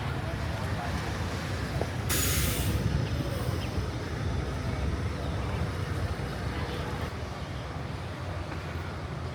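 Street traffic rumble, steady and low, with a sharp hiss lasting about a second, about two seconds in.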